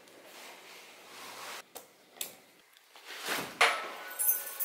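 Apartment door being opened: sharp clicks and a louder clack of the lock and latch, the loudest about three and a half seconds in, after quiet rustling of a backpack being lifted.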